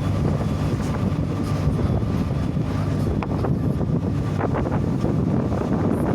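Wind buffeting the microphone: a steady low rumble with a few faint crackles.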